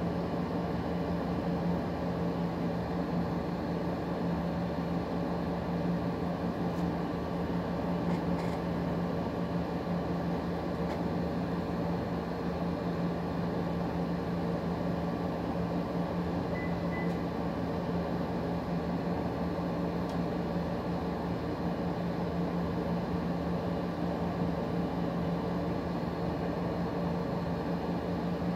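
Steady mechanical hum with a low drone and even hiss that does not change, like an appliance or ventilation unit running in a small room. There are a couple of faint ticks and a brief faint beep partway through.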